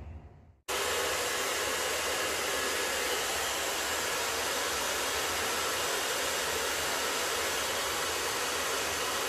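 BaByliss hand-held hair dryer switched on about a second in and then running steadily, a constant rush of blown hot air aimed at a double-sided adhesive pad to soften its glue.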